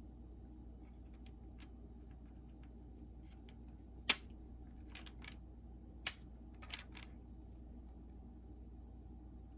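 Sharp plastic clicks from a Sony WM-FX28 Walkman being handled and its keys worked: a loud click about 4 seconds in, two softer ones, another loud one about 6 seconds in, then a quick cluster of clicks, over a faint steady hum.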